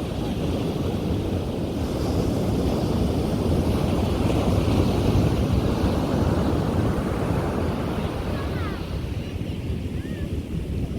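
Ocean surf breaking and washing on a sandy beach, a steady rushing roar that swells a little in the middle.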